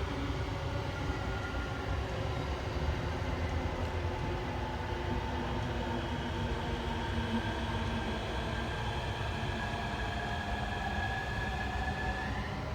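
JR electric train passing: a steady rumble of wheels on the rails under the whine of its electric motors, which climbs slowly in pitch.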